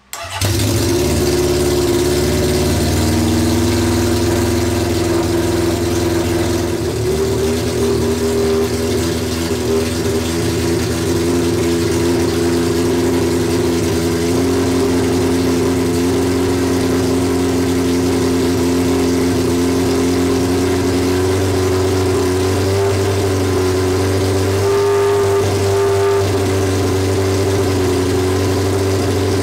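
Honda CB750 SOHC inline-four engine firing up just after the start and running loud and steady on choke through open exhaust pipes with no silencers. There is a brief rise in revs about 25 seconds in.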